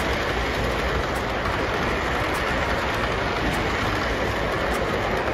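O-gauge model freight train rolling past close by: a steady rushing rumble of its metal wheels on the rails.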